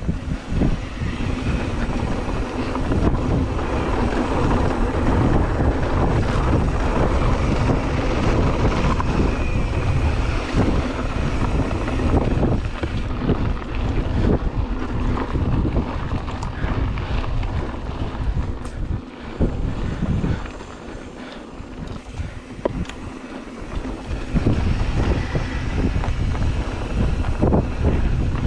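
Wind rushing over the camera microphone while a full-suspension mountain bike (Ibis Mojo HD3) rolls fast down a dirt singletrack, its tyres crunching over the ground and its frame and chain rattling and knocking over bumps. It eases off for a few seconds about two-thirds of the way through, then picks up again.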